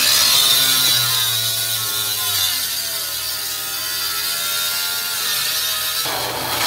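Angle grinder with an abrasive cut-off disc cutting through the sheet-steel casing of an ATM, the motor whining steadily under load with a harsh grinding hiss. The whine dips a little in the first couple of seconds, and the sound turns rougher about six seconds in.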